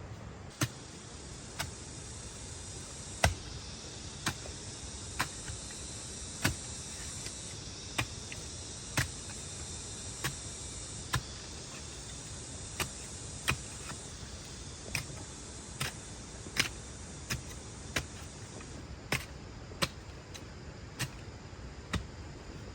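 A series of sharp knocks, roughly one a second and somewhat uneven, over a steady high hiss that fades out near the end.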